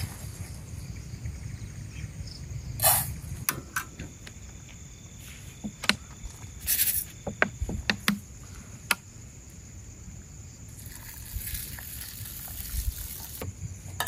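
Rice being washed by hand in a pot: water swishing and splashing, with scattered knocks and clinks of the pot, over a low steady rumble.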